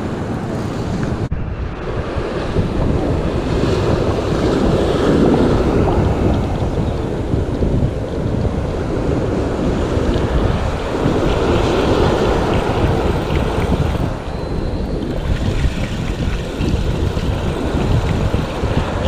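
Surf breaking and washing up the beach, with wind buffeting the microphone.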